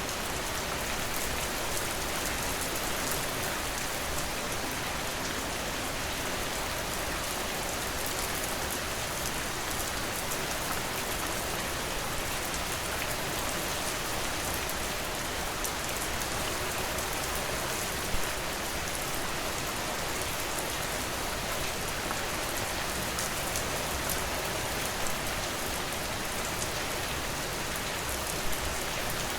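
Steady rain falling on a surface, an even hiss with distinct drops tapping through it and now and then a louder single drip.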